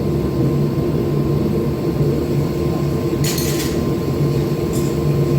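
Forge running with a steady droning rumble. A brief sharp noise comes about three seconds in and a fainter one near the end.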